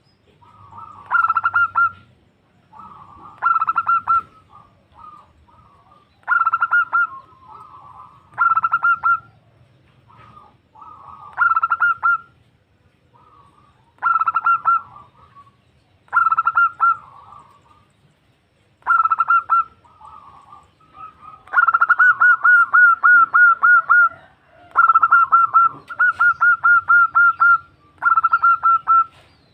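Zebra dove (perkutut) cooing: short bursts of rapid staccato notes come about every two to three seconds, with softer notes between them. About two-thirds through, a longer and louder run of rapid notes follows. This is the female's call to a male.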